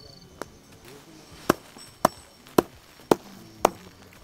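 A wooden stick beating roasted green sorghum heads (hurda) on a cloth over the ground, in sharp, even knocks about twice a second that thresh the grains loose from the stalks. The knocks begin about a second and a half in.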